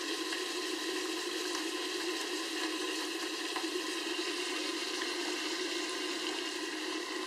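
Pork ribs, onion and carrot frying in an Afghan kazan: a steady sizzle with fine crackling.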